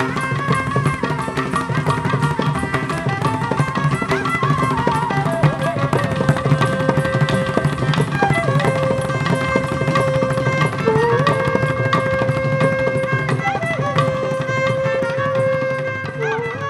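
Mohiniyattam dance accompaniment music: mridangam drumming under a melodic instrument holding long, gently bending notes, beginning to fade near the end.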